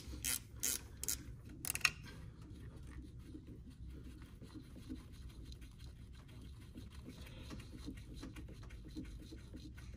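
8 mm wrench on an engine bolt clicking in short strokes, about two or three a second, for the first two seconds, as the bolt is loosened. After that there are only faint small ticks of the tool and bolt being handled.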